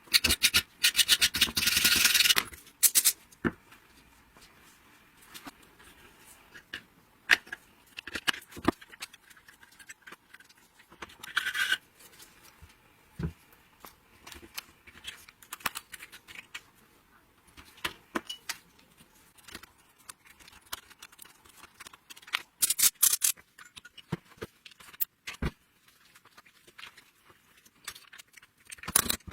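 Hand tools and metal chainsaw parts being handled on a bench: scattered clicks and clinks, with short rattling scrapes at the start, about halfway through and near the end.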